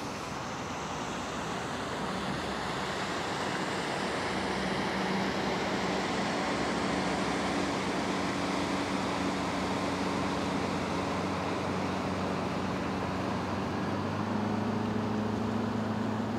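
Low, steady engine hum with a few held tones that grow stronger about three-quarters of the way through, over a steady rushing noise of wind and water.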